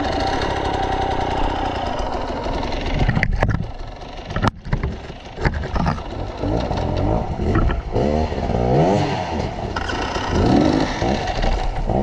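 Enduro dirt bike engine running, then revved up and down several times in the second half. A few sharp knocks and clatters come around the middle.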